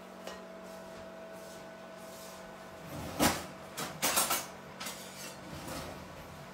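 Kitchen handling noises on a countertop: a few short knocks and scrapes come from about halfway in, over a steady faint background hum.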